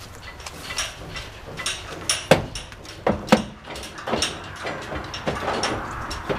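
A horse's hooves clunking on the floor of a stock trailer as it steps up and walks in: a run of sharp knocks, the loudest two about two and three seconds in.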